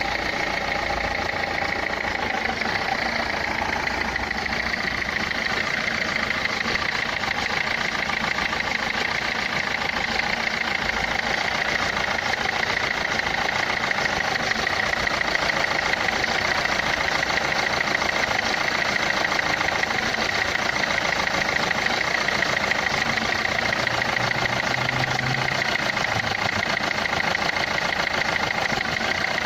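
Renault Clio III 1.5 dCi four-cylinder diesel engine idling steadily with a fast, even clatter. The uploader takes the noise for a fault in the injectors.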